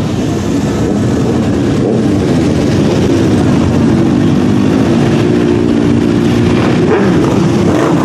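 Several motorcycles riding slowly past at close range, their engines running together in a steady, loud rumble. Near the end the pitch glides down and back up as individual bikes go by.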